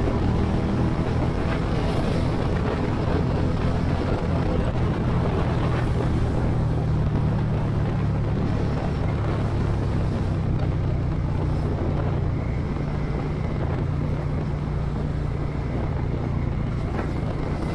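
Suzuki SV650X's 645 cc V-twin engine running steadily at highway speed under a constant rush of wind noise, a little quieter in the last few seconds as the bike slows.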